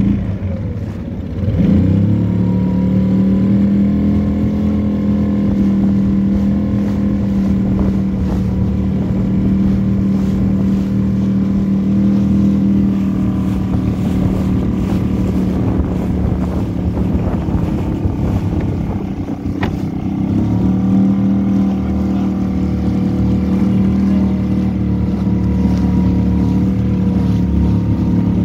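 Small outboard motor pushing a dinghy along at a steady cruising speed; it picks up revs about two seconds in, eases off briefly about twenty seconds in, then settles back to the same steady note.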